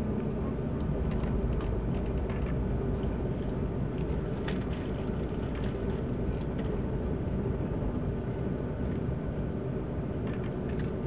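Passenger train running, heard from inside the carriage: a steady low rumble with a few scattered light clicks.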